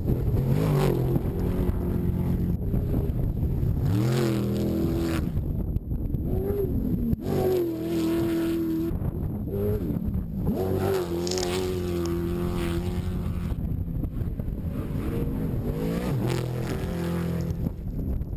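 Trophy truck race engines revving hard in several surges, the pitch climbing and falling again, held high for a second or two in the middle, over a steady low rumble.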